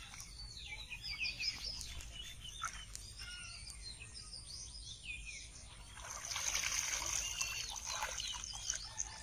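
Small birds chirping throughout, with water sloshing and splashing as legs wade through shallow water and a fishing net is dragged; the splashing is loudest from about six to eight and a half seconds in.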